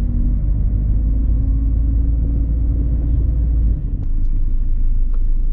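Steady low rumble of a car driving, with road and engine noise. The deepest part of the rumble eases a little after three and a half seconds in.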